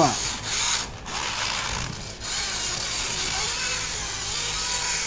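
Radio-controlled drift car whirring along, its small electric motor humming and its hard drift tyres hissing as they slide across the smooth floor; slightly louder in the first second, then steady.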